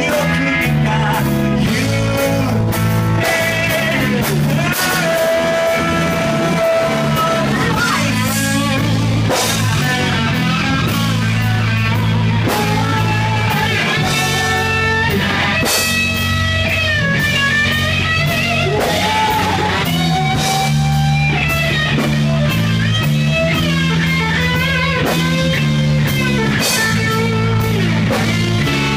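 Live rock band playing: an electric guitar lead with bent, wavering notes over bass guitar and drum kit, recorded on a phone.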